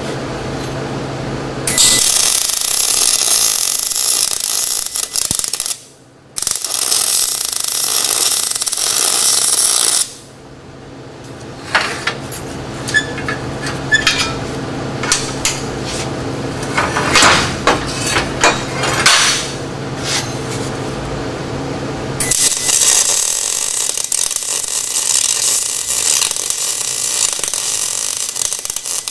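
Arc welding steel brackets: the arc's crackling sizzle runs in two stretches, with a brief break between them. Then come about twelve seconds of sharp clinks and knocks as the steel pieces are handled on the steel welding table. The arc sizzle starts again near the end. A low steady hum sits under the opening seconds.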